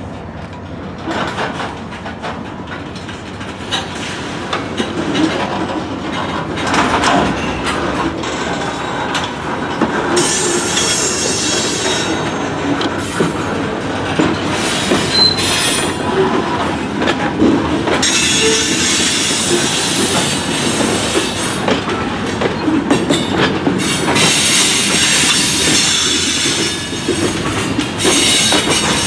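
CN freight train's covered hopper cars rolling slowly past, wheels running over the rails with squealing and screeching that comes and goes in long stretches. The sound grows louder over the first few seconds as the cars draw near.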